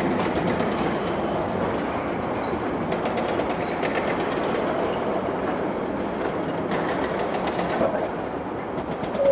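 Electric commuter train running on the rails: a steady rushing rumble with faint high squeals above it, easing off near the end.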